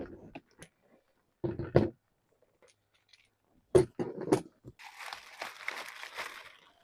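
A cardboard box being opened by hand: a few dull thumps, then sharp knocks about four seconds in, followed by a couple of seconds of tearing and crinkling of packaging.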